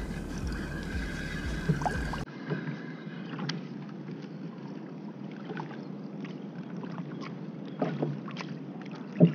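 Spinning reel being wound in against a hooked fish, with sea water lapping around a plastic kayak. Short clicks and knocks recur throughout, with one louder knock near the end.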